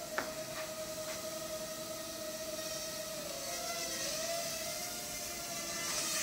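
Ryze Tello mini quadcopter flying, its propellers giving a steady high whine that dips and rises in pitch a little past halfway as the motors adjust. A sharp click comes just after the start.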